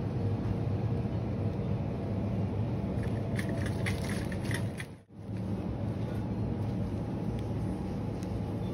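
Steady low hum and rumble of a supermarket's background, from refrigerated display cases and ventilation. Light rattling clicks come between about three and five seconds in, followed by a brief dropout.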